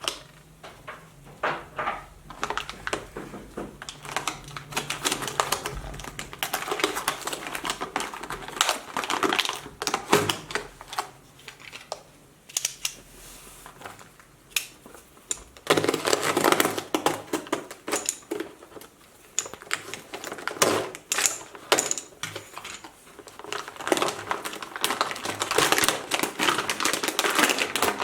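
Meat grinder crushing jeera biscuits: a dense, irregular run of sharp cracks and crunches that comes in bursts, thickest about midway and near the end.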